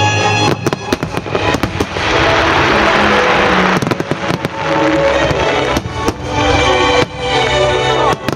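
Fireworks from a starmine barrage going off in quick succession, sharp bursts throughout with a dense shower of crackle from about two to four seconds in, over music played on loudspeakers.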